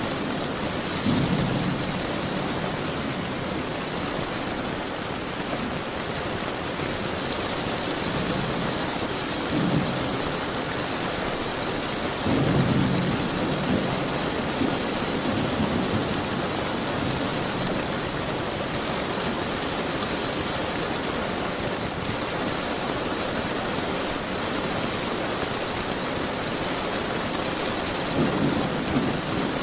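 Steady, heavy rain falling, with low rolls of thunder rumbling up several times: about a second in, around ten and thirteen seconds, and again near the end.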